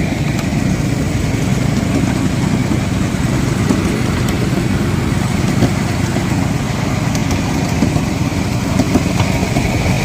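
Miniature railway train running, heard from a carriage: a steady low rumble of the locomotive's engine and wheels on the track, with a few faint clicks.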